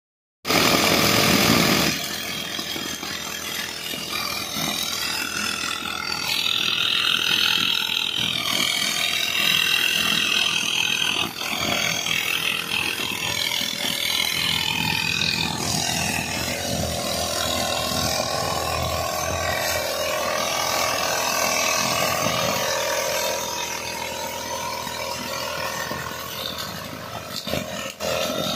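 Petrol brush cutter running, its engine speed rising and falling as it cuts through long grass and weeds.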